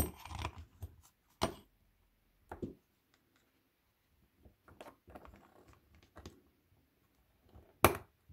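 Small steel parts of a pencil sharpener's three-jaw chuck clicking and tapping against each other as they are fitted together by hand. A sharp click at the start and another near the end, with lighter clicks and faint scrapes between.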